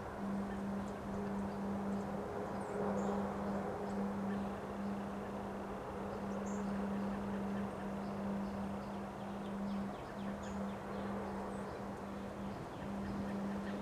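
Windstorm wind blowing as a steady rush, over a steady low hum that drops out briefly several times, with scattered faint high chirps.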